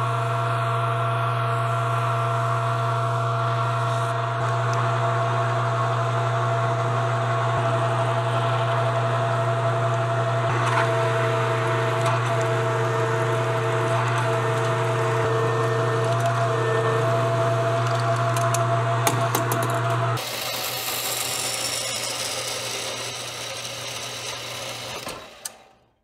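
A machine-shop power tool running steadily, its motor humming with a few steady higher whining tones. About twenty seconds in, the motor hum stops abruptly, leaving a fading hiss before the sound cuts off.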